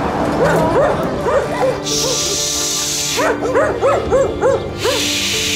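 Husky-type dog whimpering and yipping in short rising-and-falling cries, several a second, over background music.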